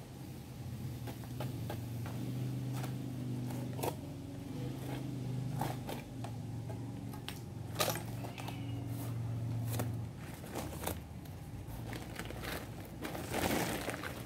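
Cement sack crinkling and rustling in gloved hands as dry cement is shaken out onto a pile of soil, with short scrapes and crackles and a denser rush of pouring near the end. A low steady hum runs underneath from about a second in until about ten seconds in.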